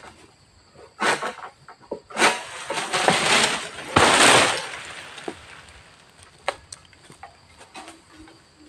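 Oil palm frond being cut high in the crown with a long-pole harvesting sickle: several sharp snaps, then a loud rustling crash about four seconds in as the frond falls through the foliage, fading over a second or so.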